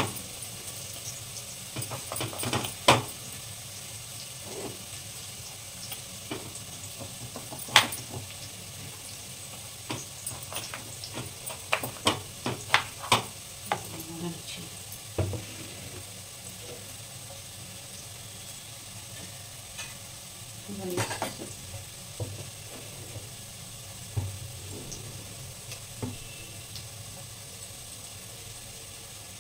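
Kitchen knife tapping and knocking on a plastic chopping board as a tomato is diced, in irregular sharp strokes with a louder cluster around the middle, over a faint steady sizzle of onions frying in ghee.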